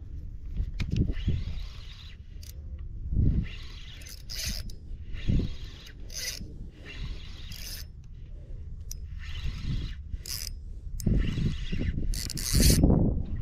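A fishing reel being cranked in repeated bursts of about a second each, its gears whirring, while a hooked barracuda is played on lure tackle. Low rumbling thumps come in between, loudest near the end.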